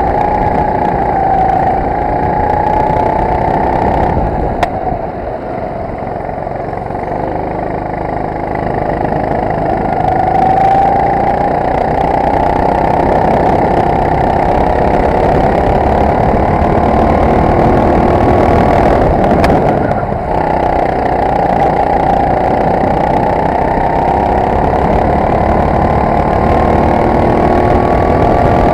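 Racing kart engine heard onboard at speed, its note climbing steadily as the kart accelerates, dropping briefly about four seconds in and again about twenty seconds in as the throttle is lifted for corners, over a steady rush of noise.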